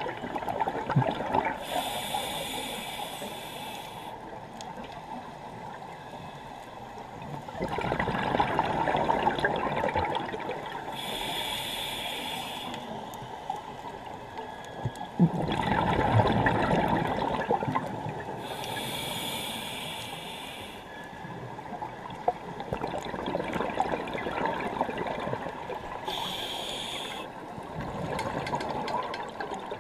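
Scuba diver breathing through a regulator. A hissing inhale comes four times, about every eight seconds, and each is followed a few seconds later by a louder rush of exhaled bubbles.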